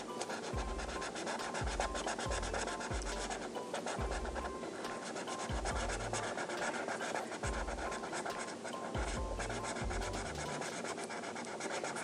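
Rapid scratchy strokes of colouring on paper, steady and dense, over background music with a repeating low bass line.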